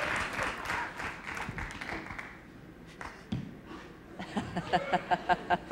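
Audience applause dying away over the first couple of seconds, a single thump about three seconds in, then short rhythmic bursts of laughter near the end.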